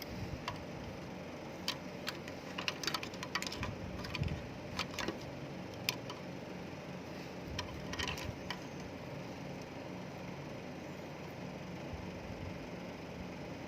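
Scattered light clicks and taps of small fan parts and connectors being handled, over a steady low hum. The clicks stop about nine seconds in.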